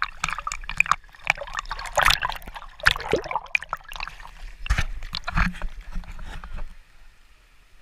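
Water splashing and sloshing in a river: a quick run of irregular splashes as people move about in the water. The splashing stops about seven seconds in, leaving a faint steady hiss.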